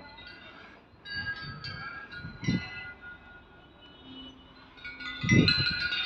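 High, bell-like chiming tones ringing out at irregular moments and overlapping as they fade. Two short low thumps come about 2.5 s and 5.4 s in.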